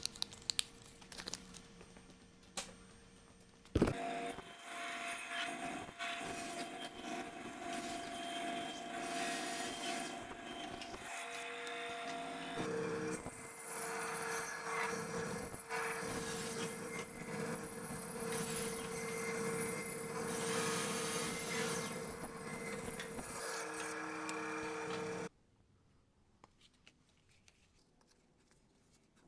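Band saw running and cutting a small block, a steady whir with the rasp of the blade in the material. It starts with a sharp knock about four seconds in, after a few faint clicks, and stops abruptly about four seconds before the end.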